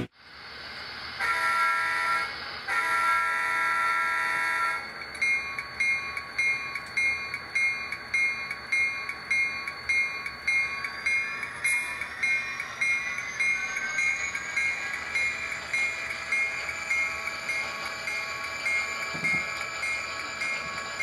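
HO-scale model diesel locomotive's onboard sound: two long horn blasts, then a bell ringing about one and a half times a second over the steady engine sound, with a whine rising in pitch about halfway through.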